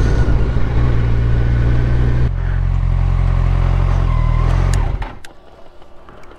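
Motorcycle engine running at low revs, changing note about two seconds in, then cutting off about five seconds in, leaving a few light clicks.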